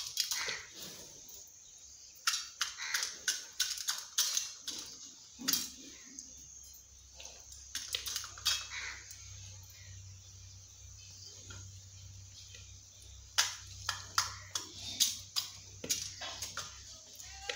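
Indian peafowl's beak pecking in a small metal tin: quick runs of sharp clicks and taps, a few seconds apart, the loudest run near the end.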